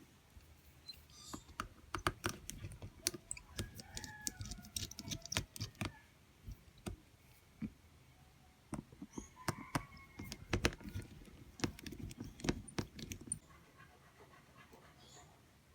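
Irregular small clicks and taps of hand tools and plastic parts during a smartphone teardown, in two busy spells with a lull in the middle.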